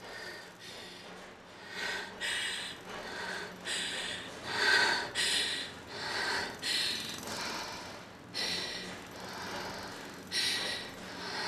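A woman's heavy, ragged breathing: a quick series of loud breaths and gasps, about one or two a second, loudest around the middle.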